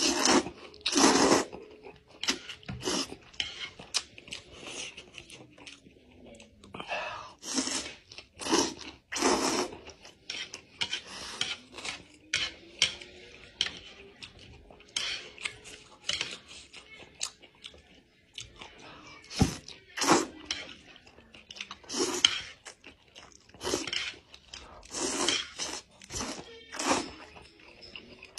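A person eating fried noodles: loud slurps as mouthfuls of noodles are sucked in, every second or two, with chewing in between.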